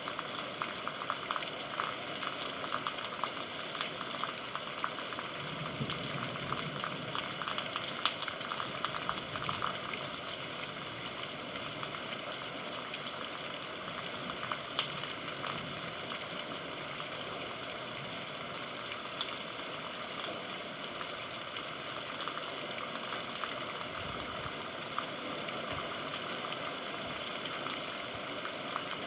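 Steady rain falling: an even hiss dense with fine drop ticks.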